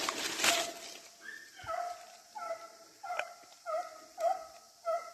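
Rustling of brush for about the first second, then a hunting hound baying on a chase, a steady run of short calls about two a second.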